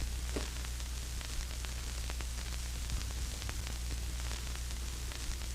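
Steady static hiss over a low electrical hum, with a few faint scattered clicks.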